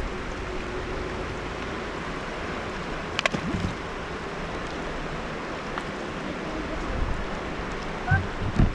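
Steady rush of river water, with a stone splashing into it once about three seconds in.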